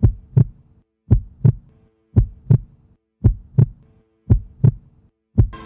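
Heartbeat sound effect: a low lub-dub double thump about once a second, over a soft sustained musical chord.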